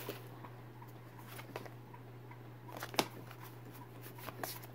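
Pokémon trading cards being handled and squared up in the hands: soft slides and a few light clicks of card stock, the sharpest about three seconds in, over a low steady hum.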